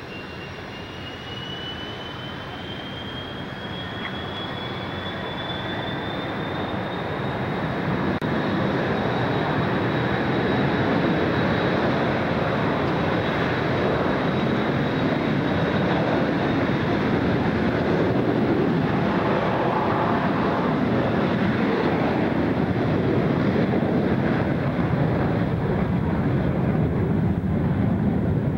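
A rear-engined twin-jet airliner of the DC-9 type spooling up for takeoff. A thin engine whine rises in pitch over the first several seconds while the jet noise swells, then the sound holds loud and steady through the takeoff roll.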